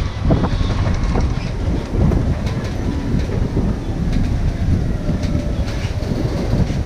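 Ride noise on board an open-sided electric road tram on the move: a steady low rumble of tyres on the road, with light rattles of the tram's body.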